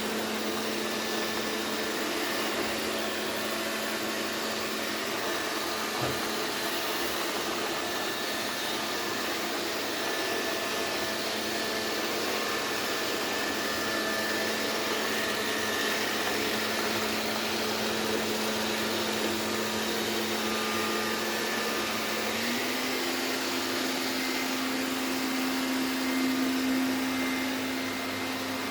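Robot vacuum cleaner running: a steady whir of its suction motor with a humming tone that steps up slightly in pitch about three-quarters of the way through.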